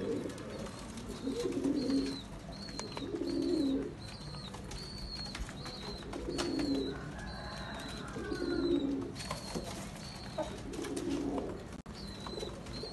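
Pigeons cooing over and over, one coo phrase about every two to three seconds, with a short high chirp repeating about once a second.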